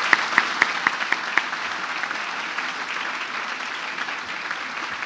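Audience applauding steadily, with a few louder single claps close to the microphone during the first second and a half.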